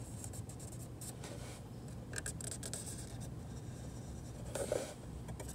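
Felt-tip marker pen drawing on the hard plastic of a headlight housing in short scratchy strokes, tracing the line where the plastic is to be cut away.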